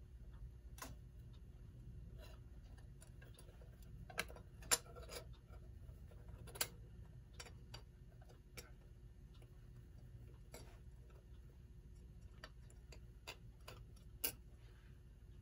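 Faint, irregular clicks and taps from the metal and glass parts of a 1928 Telechron Oxford clock being handled as its works are worked loose and lifted out of the case, the sharpest about five seconds in and near the end.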